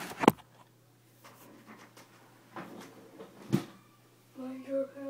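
Two sharp handling knocks at the start and a few fainter taps, then about four seconds in a person humming a steady low note.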